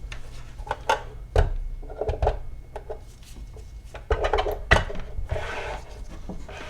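Small metal vise parts being handled on a workbench: scattered light knocks and clinks with some rubbing and scraping.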